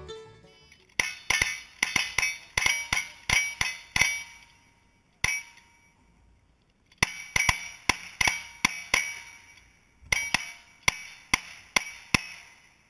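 Rapid gunfire from single-action revolvers and lever-action rifles, each shot followed by the short ring of a steel target being hit. The shots come in three fast strings of about seven to ten, with one lone shot between the first two.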